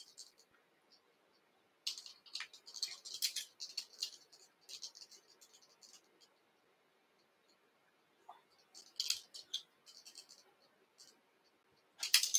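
Faint scratchy rustles and light clicks from oval gold tinsel and hackle pliers being handled at a fly-tying vise as the rib is wound on a salmon fly. They come in short spells about two seconds in, around nine seconds and again at the end, with near-quiet gaps between.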